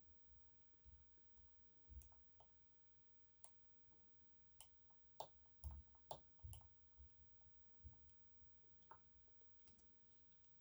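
Faint, irregular small metallic clicks from a hook pick and tensioner working the sliders inside an EVVA 3KS lock during picking, bunched more closely together around the middle.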